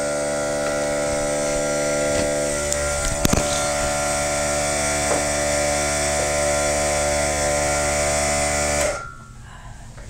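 Air compressor motor running with a steady hum, then cutting off abruptly about nine seconds in as it is unplugged. A single knock sounds about three seconds in.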